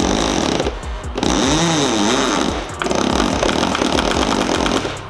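Power drill driving screws into a wooden workbench, running in bursts with short stops about a second in and near three seconds, its pitch wavering under load; it runs at a single speed.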